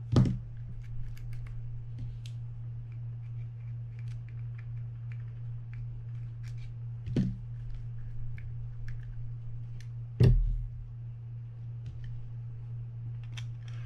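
Small scattered clicks and ticks of a mini screwdriver and metal screws being worked on a Penn Spinfisher 550SSG spinning reel's body, with three louder knocks of tools or the reel set down on the bench: right at the start, about seven seconds in, and the loudest about ten seconds in. A steady low hum runs underneath.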